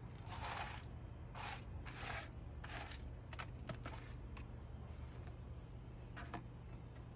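Hands spreading and smoothing fresh bedding across the floor of a bird cage: a run of short rustling, scraping strokes in the first three seconds, then a few light clicks, over a steady low hum.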